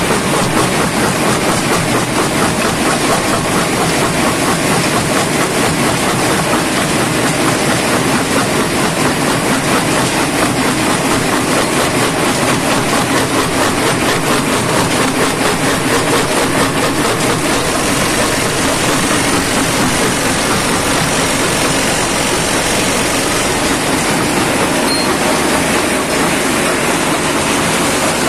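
Shanbao PE 250×400 jaw crusher running loud and steady while crushing stone: a dense, fast, rhythmic clatter of rock breaking between the jaws over the noise of the running machine.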